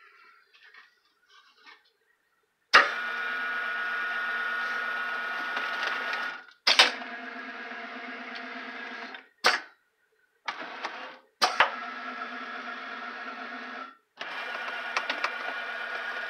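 ProLIGHT 2000 benchtop CNC mill working through an automatic tool change. After a near-quiet start, its motors whine steadily through a series of moves a few seconds long, each starting with a sharp click, with short pauses between.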